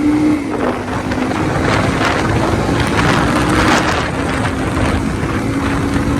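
A vehicle engine running steadily, its hum shifting slightly in pitch, with wind buffeting the microphone.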